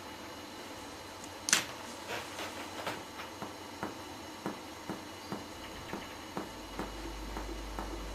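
Finger-on-finger chest percussion: light taps of the examiner's finger on a pleximeter finger laid on the patient's back parallel to the spine of the shoulder blade, about three taps a second, the first one about 1.5 s in the loudest. It is topographic percussion, moving upward to find the height of the lung apex from behind.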